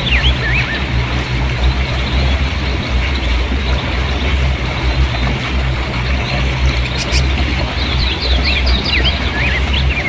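Fast river water rushing and splashing over rocks in a steady, loud rush with a deep rumble. Small birds twitter briefly at the start and again over the last few seconds.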